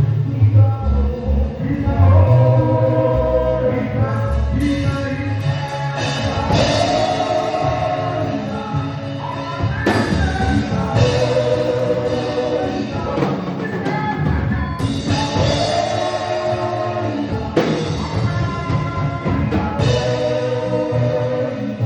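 Live gospel music: a group of voices singing held phrases in harmony over a band with bass and drums.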